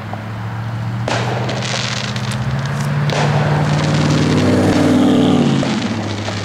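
Fireworks bursting with crackle, about a second and about three seconds in, over a steady low drone that rises in pitch and swells near the middle before settling back.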